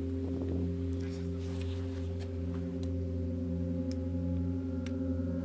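Background music: a low, steady drone of several sustained tones held unchanging, with a few faint clicks over it.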